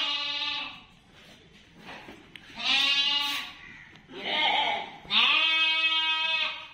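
Goat bleating: four calls, one at the start, one near the middle, a short rough one, and a long drawn-out bleat of about a second and a half near the end.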